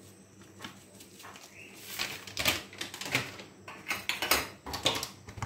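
Light, irregular clicks and taps from a plastic spice jar being shaken and handled over a glass mixing bowl of batter, about ten in a little over three seconds.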